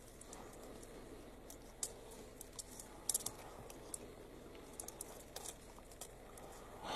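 Faint, irregular clicks and crackles as a leopard bites and tears at a porcupine, quills rattling against each other and the tarmac.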